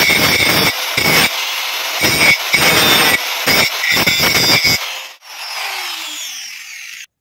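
Angle grinder grinding steel, its disc biting the metal in a series of short passes, then running free and winding down with a falling whine near the end.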